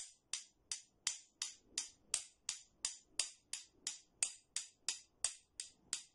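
Two metal spoons tapped against each other in a steady 3/4 rhythm, about three sharp clicks a second.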